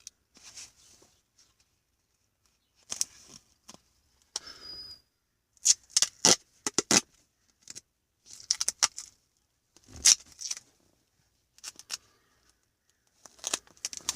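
Duct tape pulled off the roll and torn in short ripping bursts, several times over with pauses between.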